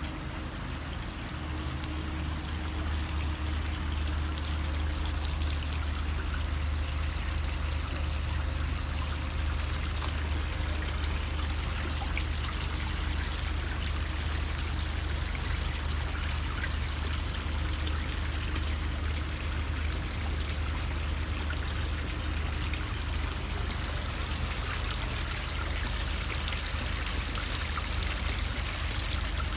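Koi pond water: a bubbler fountain and a small stone waterfall splashing and trickling steadily into the pond, over a steady low rumble.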